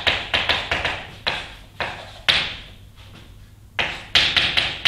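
Chalk tapping and scratching on a blackboard as a formula is written: a run of sharp, uneven taps a few times a second, with a pause of about a second just past the middle.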